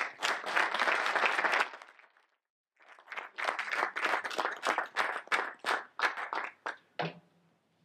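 Audience applauding, dying away about two seconds in. After a brief break the applause starts again and thins to scattered claps near the end.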